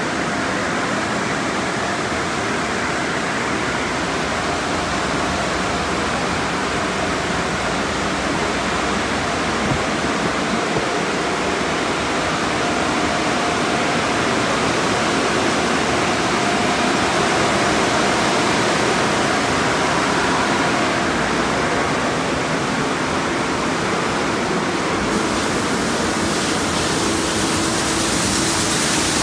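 Conveyor car wash tunnel at work: water spraying and cloth wash brushes turning against a car, a steady rushing wash noise with a faint machine hum. Near the end a higher hiss comes in.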